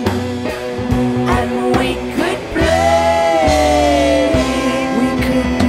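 Band music in a bluegrass and Americana rock style, with drums and bass under a long held note that slowly slides down in pitch about three seconds in.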